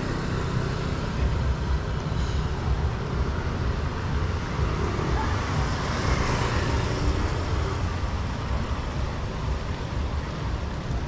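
Street traffic of motor scooters over a steady low rumble, with one scooter passing close about six seconds in.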